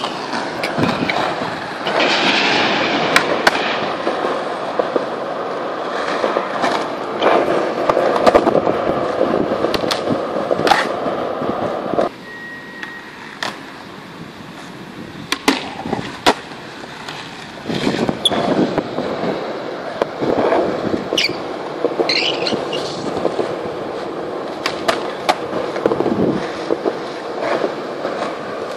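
Skateboard wheels rolling on smooth concrete, a continuous grinding rumble, broken by sharp clacks of the board popping and landing. The rolling drops much quieter for a few seconds about twelve seconds in.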